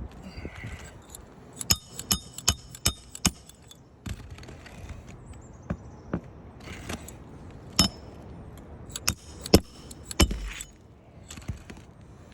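Hand hammer driving roofing nails into a replacement asphalt shingle: a quick run of sharp metallic strikes, about two or three a second, then a few scattered blows later.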